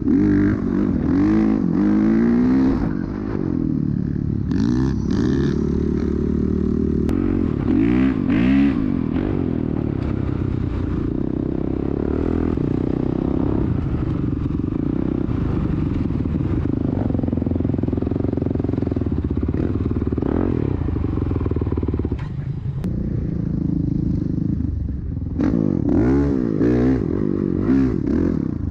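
Dirt bike engine under way, revving up and down in the first few seconds and again near the end, holding a fairly steady pitch in between.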